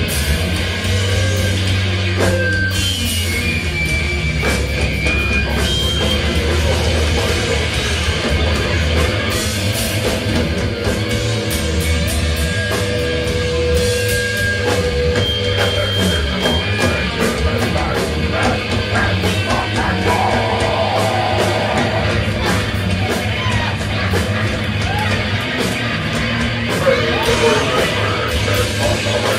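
Live rock band playing loud and distorted: electric guitars, bass and drums.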